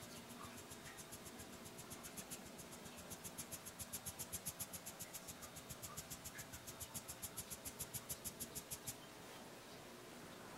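A fine-mesh sieve shaken in quick, even strokes, about six a second, sifting almond flour and powdered sugar into a bowl, each stroke a soft scratchy rustle. The strokes grow louder over the first few seconds and stop about nine seconds in.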